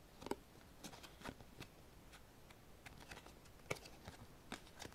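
Faint, irregular clicks and light slides of glossy photo cards being shifted one behind another between the fingers.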